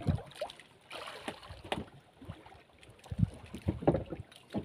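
Water slapping against the hull of a small wooden fishing boat: irregular knocks and short splashes.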